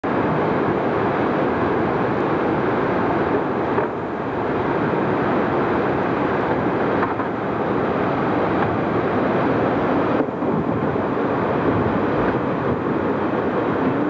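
Steady, loud roar of whitewater pouring down a waterfall, with brief dips about four, seven and ten seconds in.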